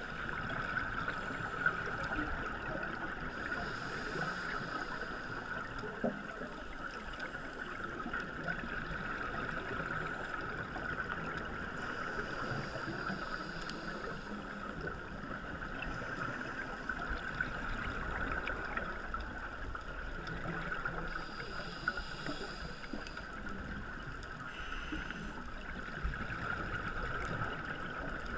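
Underwater sound of a scuba dive picked up by a camera in a waterproof housing: a steady muffled hiss with a constant high hum, faint ticking, and the gurgle of divers' exhaled regulator bubbles coming back every few seconds.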